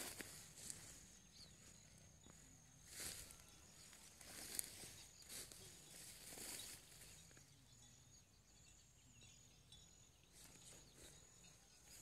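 Near silence, broken by a few soft, irregular rustles of footsteps through short, dry grass.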